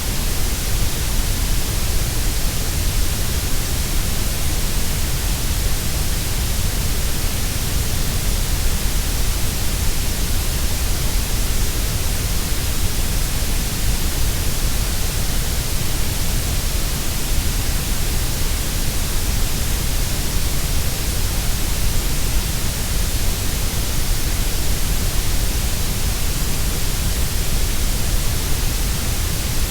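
Synthetic grey noise: a steady, unchanging hiss, heavier in the deep lows and the highs than in the middle.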